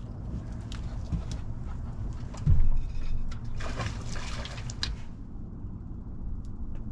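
Steady low drone of a fishing boat's motor while trolling slowly, with a heavy thump about two and a half seconds in and a short splashy rush a little over a second later.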